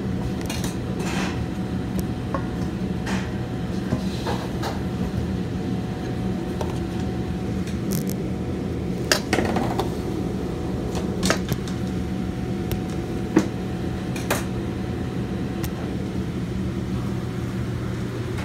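Steady low machine hum of restaurant kitchen equipment, with a few light knocks and clicks scattered through it.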